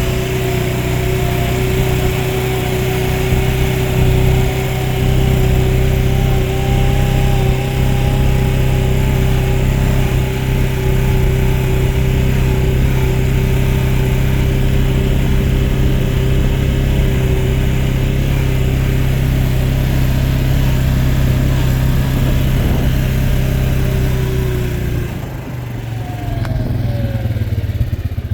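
ATV engine running steadily at a constant speed, then easing off about 25 seconds in with a short falling whine, settling into a slower pulsing note near the end.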